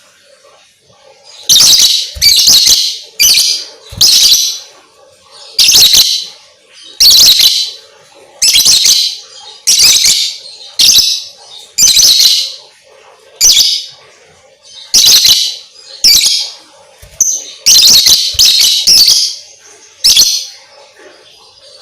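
Lovebird calling in short, loud, shrill chirps, roughly one a second, with some quick runs of two or three. This is a lovebird recording used to bait other lovebirds into singing.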